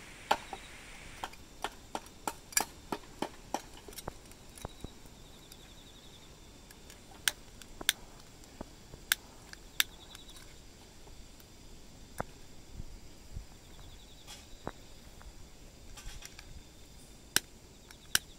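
Repeated sharp clicks of a gas lighter's piezo igniter, pressed again and again at irregular intervals, failing to light a tealight in a candle lantern. Faint insect trills in the background.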